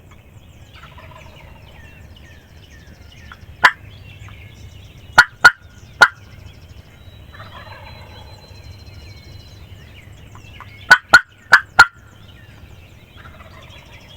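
Wild turkey gobblers gobbling at a distance, three rolling calls about six seconds apart. Between them come eight loud, sharp, very short clicks in two quick groups: one a few seconds in and four near the end.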